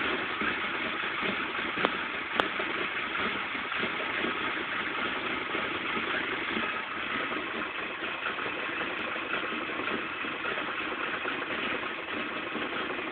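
Nissan KA24DE 2.4-litre four-cylinder engine idling steadily, an idle that the owner calls rough. There are two sharp clicks about two seconds in.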